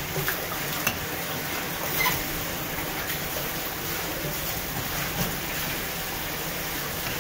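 Steady rushing background noise with a few light knocks and scrapes as a knife and gloved hands work a large wahoo on a wooden cutting board, the sharpest about a second in and two seconds in.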